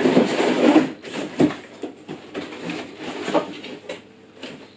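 A cardboard box being lifted and tipped, with its contents sliding and scraping inside it. A burst of rustling and scraping comes in the first second, then a sharp knock and a few lighter knocks as things shift in the box.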